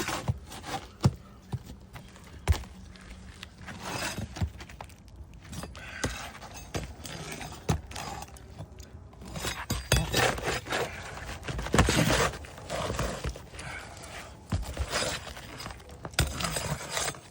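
Roofing nails being worked out from under asphalt shingles: sharp metal clicks and taps, with stretches of scraping and rubbing as the tool is pushed under the shingle, the busiest stretch about ten to thirteen seconds in.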